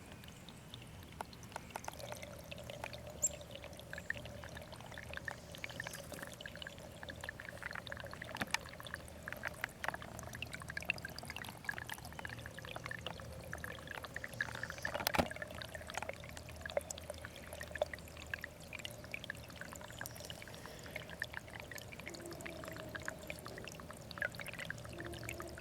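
Small spring runoff stream trickling and burbling steadily, with many small plinks and clicks of water.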